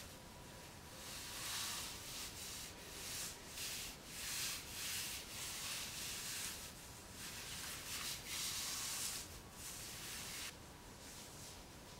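Clothing rustling: irregular soft swishes of hands rubbing and sliding over a skirt as the wearer shifts pose, fading out near the end.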